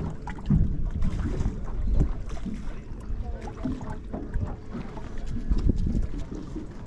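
Wind buffeting the microphone on a boat out on the water, in irregular low rumbling gusts, loudest about half a second to two seconds in and again near six seconds in, with water sounds against the boat beneath.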